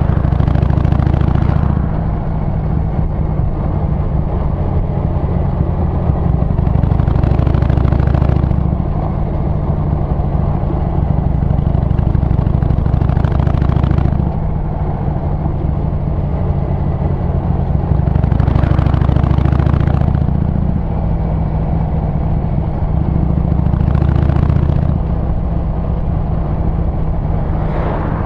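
Harley-Davidson Sportster 883's air-cooled V-twin engine and exhaust running under way, a deep steady rumble. It swells louder about five times, for a couple of seconds each, then eases back.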